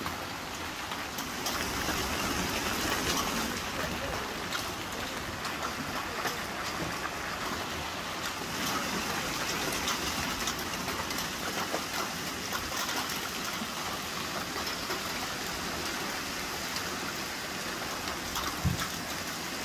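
Heavy rain mixed with hail: a dense, steady hiss with many sharp clicks of hailstones striking. One brief low thump near the end.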